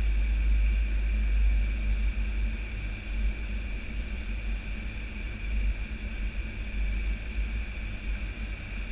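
Steady flight-deck noise of an Airbus A320-214 on final approach: a deep airflow and engine rumble with a steady high whine over it. The low rumble eases a little about three seconds in.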